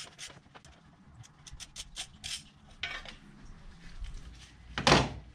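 Light metallic clinks and rattles of hand tools and parts being handled in a car's engine bay, with one louder knock near the end.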